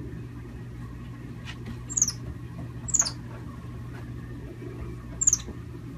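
White-faced capuchin monkey giving three short, high-pitched peeps that fall in pitch. The first two come a second apart and the third about two seconds later, over a low steady hum.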